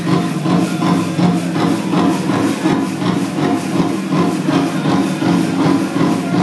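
Powwow drum group singing over a steady, even drumbeat of about three beats a second, the song for a jingle dress dance.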